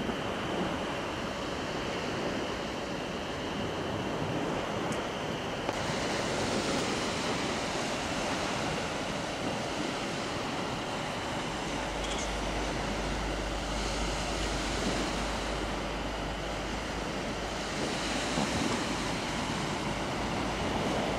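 Sea surf washing on the beach: a steady rushing noise that swells a few times, with wind rumbling on the microphone for several seconds from about halfway.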